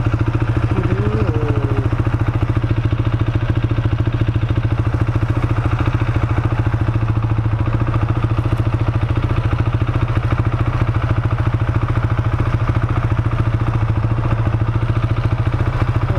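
Husqvarna motorcycle engine idling steadily, warming up just after a start.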